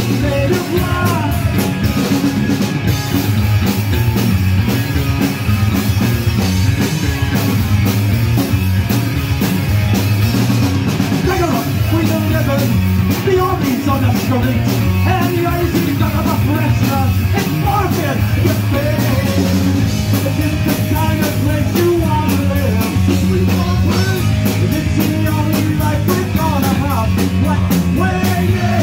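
Live punk rock band playing a song: drum kit with cymbals, bass and guitars, with singing over the top.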